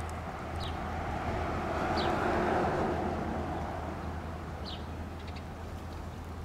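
A road vehicle passing: a rush of noise that swells to a peak about two and a half seconds in and then fades, over a steady low hum. Short high bird chirps come three times, about every two seconds.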